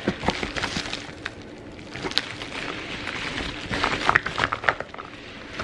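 Plastic mail bag crinkling and rustling as hands handle it, with scattered sharp crackles that are densest about four seconds in.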